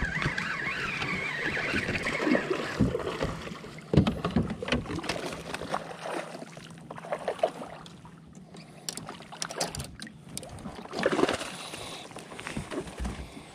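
Fish being fought and netted beside a kayak: a spinning reel winding for the first few seconds, then scattered knocks and water splashes, with a bigger splash about eleven seconds in as the landing net goes into the water.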